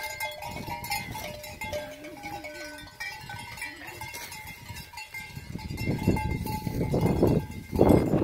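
Bells on grazing sheep clanking as the flock moves off, with a short wavering sheep bleat about two seconds in. A louder rustling, shuffling noise builds through the second half.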